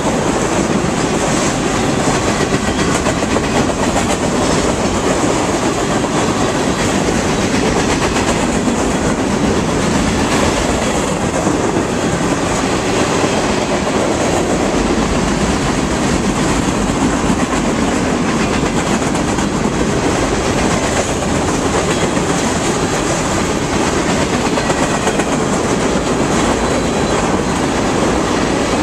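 Mixed freight cars (covered hoppers, boxcars, tank cars) rolling past: a loud, steady rumble of steel wheels on rail, with a continual clickety-clack as the wheels cross the rail joints.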